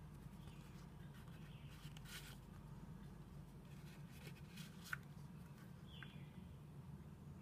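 Faint handling of a leather card case and paper business cards: soft rustles and slides, with one sharp click about five seconds in as the flap's brass snap fastener closes.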